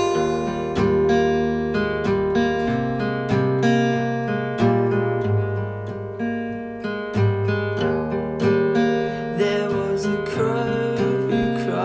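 Acoustic guitar in D A D G A E tuning with a capo at the first fret, playing an instrumental passage of plucked chords with ringing bass notes.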